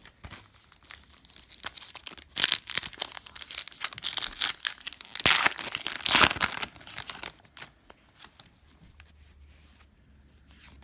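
A plastic-foil trading-card pack wrapper being torn open and crinkled, in a run of crackling bursts from about two seconds in to about seven and a half seconds in.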